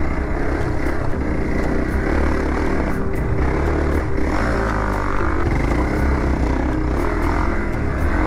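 Single-cylinder off-road motorcycle engine running steadily under way on a dirt trail, with wind noise on the helmet microphone.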